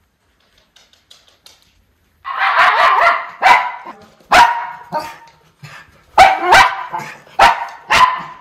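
Miniature schnauzer barking in play: a run of about ten loud, sharp barks that starts about two seconds in, the first few running together.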